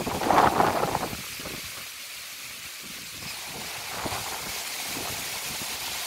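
Strong wind gusting through coconut palm fronds and trees over a steady hiss of rain, with a loud gust in the first second, a lull, and another gust about four seconds in.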